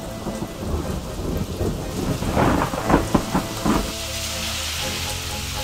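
Thunderstorm sound effect: thunder rumbling over rain, with several loud cracks about two to four seconds in. Music starts near the end.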